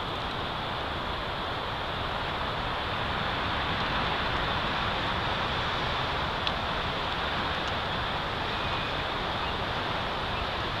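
Steady wind noise on an outdoor microphone, an even rushing hiss with a faint tick about six and a half seconds in.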